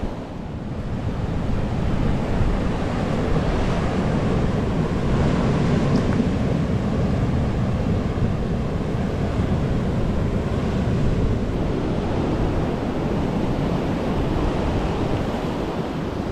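Heavy sea surf breaking steadily on a beach and rock shelf, a continuous rushing wash, with wind buffeting the microphone.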